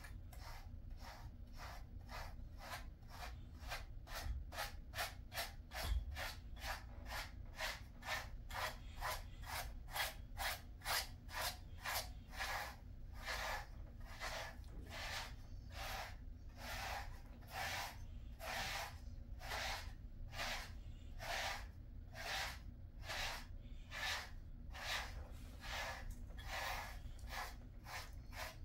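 Slicker brush drawn through a Jindo dog's coat in rhythmic strokes, about two a second, each stroke a short scratchy brushing sound.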